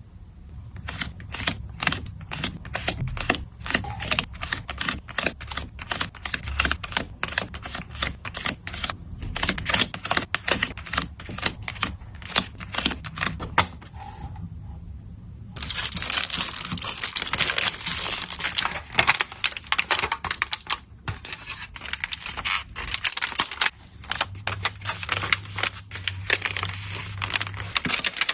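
Hands packing photocards: rapid, dense clicks, taps and crinkles of plastic sleeves and packaging, with about five seconds of steady, louder plastic rustling in the middle.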